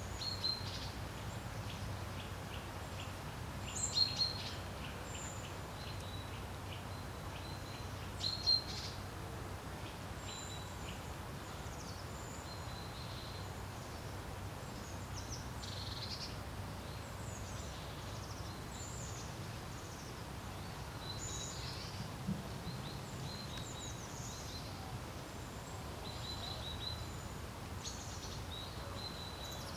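Small songbirds chirping and calling in short high notes throughout, loudest about four and eight seconds in, over a steady low rumble of wind.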